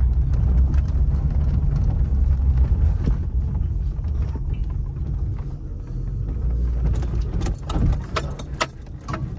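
Low, steady rumble of a 1996 Toyota Camry running. Near the end there are a few sharp clicks and rattles.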